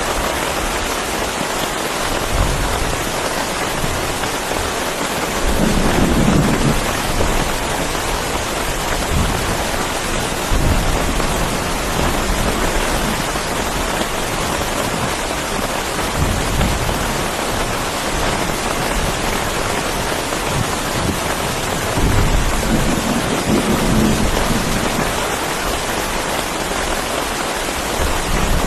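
Heavy rain pouring steadily, with low rolls of thunder about six seconds in and again around twenty-three seconds.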